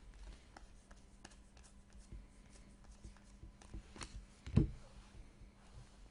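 Football trading cards being handled and flipped through by hand: soft rustles and light clicks, with one louder knock about four and a half seconds in.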